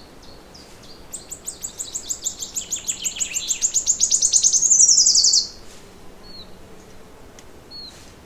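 A songbird singing one long, rapid trill of repeated high notes that speeds up and grows louder before cutting off suddenly, followed by a couple of faint short chirps near the end.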